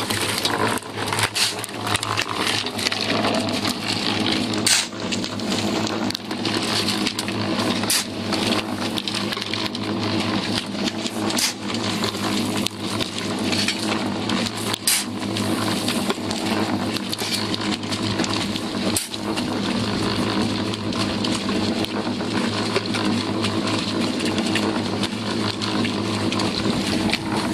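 Concrete mixer running with a steady hum while a shovel scrapes into a slag pile, with sharp knocks about every three or four seconds as loads go in.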